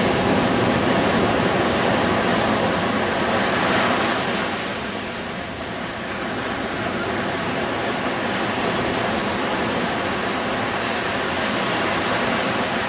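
Surf washing up a sandy beach: a steady rush of breaking waves that eases briefly about five seconds in, then builds again.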